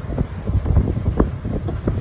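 Wind buffeting the microphone on a sailing barge under way: a loud, uneven low rush with many quick irregular gusts.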